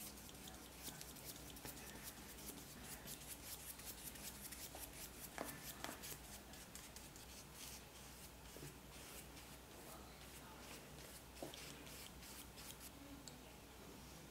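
Flat paintbrush stroking gouache across sketchbook paper: a faint run of short, scratchy brush strokes, several a second, thinning out near the end.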